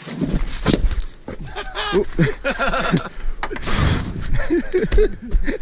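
Indistinct talking, with short knocks and clicks of handling noise close to the microphone.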